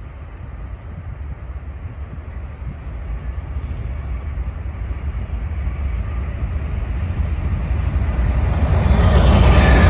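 Norfolk Southern freight train's diesel locomotives approaching: a low engine rumble that grows steadily louder, with wheel-on-rail noise joining near the end as the lead units draw close.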